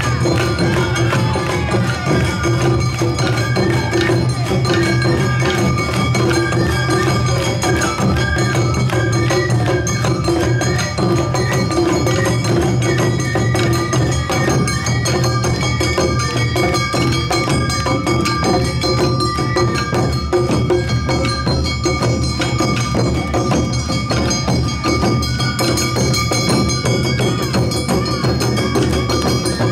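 Awa Odori festival band playing: taiko drums and a small hand gong keep a fast, steady two-beat rhythm, with a bamboo flute melody over the first two-thirds and shamisen.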